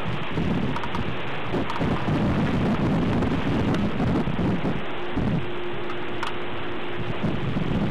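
Low rolling thunder, heaviest in the first half, over steady rain and wind noise on the microphone.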